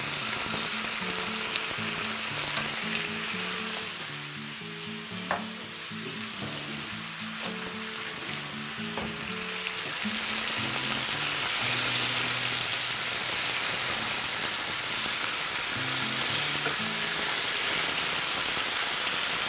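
Pork spare ribs sizzling in a frying pan of caramelized sugar and shallots as they are stirred with chopsticks and a spoon. The sizzle eases for a few seconds, then grows louder from about ten seconds in. Quiet background music with low melodic notes runs underneath.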